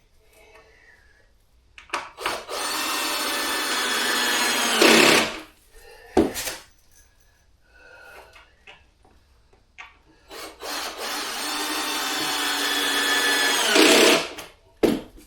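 Power drill driving two wood screws into floor panels, each a steady motor whine of about three seconds that grows louder as the screw goes in and stops sharply. The screws fasten the floor down to stop it squeaking.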